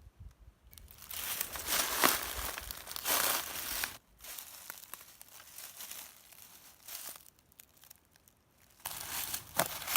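Footsteps crunching through fallen leaves in uneven bursts, loudest in the first few seconds and again near the end, with a quieter stretch between.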